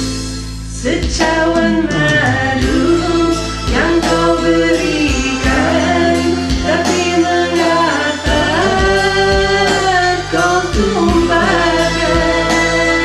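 Karaoke singing over a recorded backing track: a voice holds and bends sung notes above a steady bass line and accompaniment.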